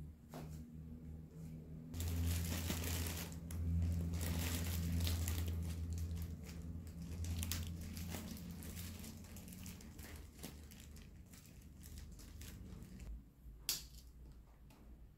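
Small electric cooking pot heating up: a low electric hum with dense crackling comes in about two seconds in and eases off over the next several seconds, as bread toasts dry in the pot. A single sharp click near the end.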